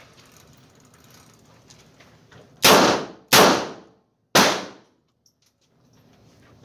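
Three shots from a Smith & Wesson Model 12 snub-nose .38 Special revolver, each echoing in an indoor range: two shots about two-thirds of a second apart, then a third about a second later.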